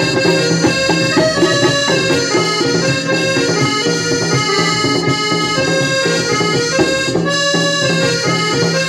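Instrumental folk music: a reed keyboard instrument plays a melody in held chords over steady drum beats.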